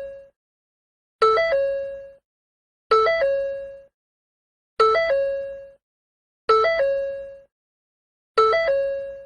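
Ford door-open warning chime repeating about every two seconds, five times in full plus the fading end of the one before. Each chime is a quick electronic three-note figure: a low note, a higher one, then a middle note held and dying away.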